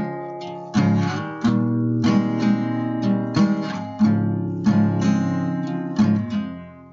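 Strummed acoustic guitar chords played as an instrumental passage, with the last chord ringing and dying away near the end.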